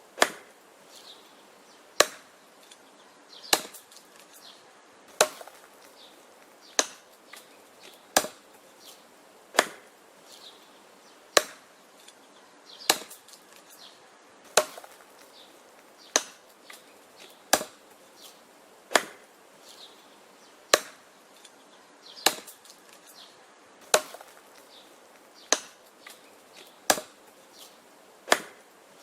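Wood being chopped: sharp, single chopping strikes landing at a steady pace of about one every second and a half.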